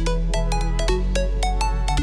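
Electronic background music with a steady beat, bass line and short synth notes.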